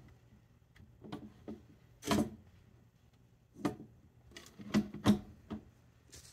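Irregular light clicks and taps, about nine of them, one a little louder about two seconds in: handling noise around a glass terrarium.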